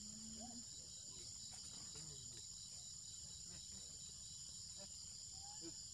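Faint insect chorus in tropical forest: a steady, high-pitched drone that runs unbroken, with a few faint short chirps at lower pitch scattered through it.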